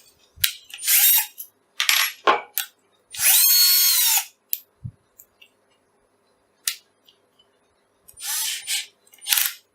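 Electric drill with a micro drill bit run in short bursts, one about three seconds in spinning up and winding down over about a second, between sharp metallic clicks and rattles.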